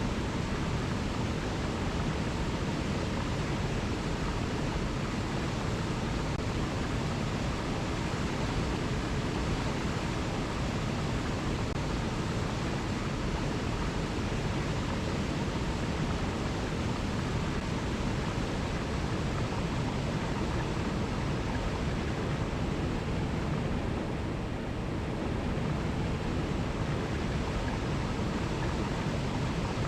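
Alpine mountain river rushing over cascades: a continuous, even rush of water with no birds or music.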